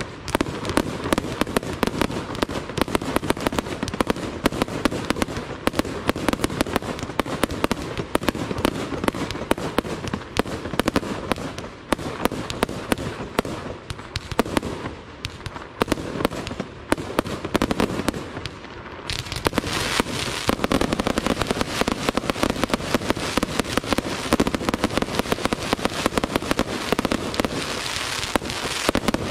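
Aerial fireworks display: a rapid, unbroken barrage of shell bursts and bangs. About two-thirds of the way in it turns into a denser crackling hiss, with the bangs still going on top.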